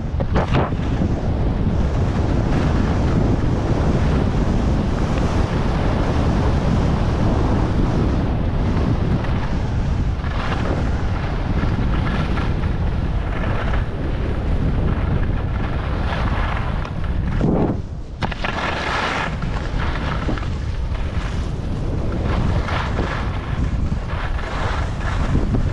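Rushing wind buffeting the microphone of a GoPro Hero 11 during a fast downhill ski run, a steady low rumble. Over it come swells of hiss as the skis carve and scrape across groomed snow, with a short lull about two-thirds of the way through.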